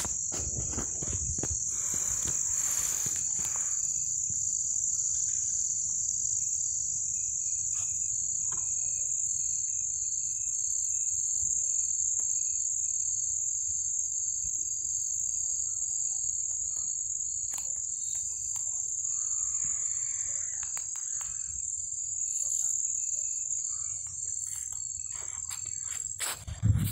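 Night-time chorus of crickets chirring in one steady, high-pitched unbroken trill, over a low rumble of handling or wind noise.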